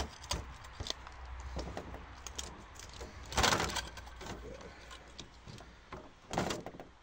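Clicks, taps and light metallic rattling from handling the thin sheet-metal back cover and plastic parts of an LCD monitor panel being dismantled, with two louder, brief rattles about three and a half seconds in and again near the end.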